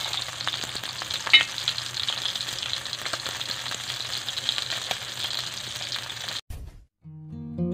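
Needlefish frying in hot oil in a steel wok: a steady sizzle with fine crackling, and one sharp ringing metallic clink about a second and a half in. The sizzle cuts off abruptly near the end, and strummed acoustic guitar music starts.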